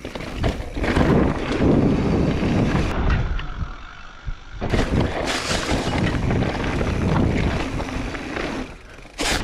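Mountain bike rolling fast down a dry, dusty dirt trail: tyre noise on loose dirt and stones, with wind rushing over a chest-mounted GoPro Hero8's microphone. It goes quieter for about a second and a half around three seconds in as the bike leaves the ground over a hip jump, and the noise returns sharply on landing.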